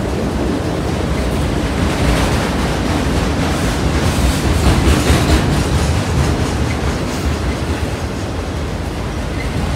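Union Pacific freight train of autorack cars rolling past: a steady rumble of steel wheels on rail with a light clickety-clack of wheels over the rail joints, swelling a little about halfway through.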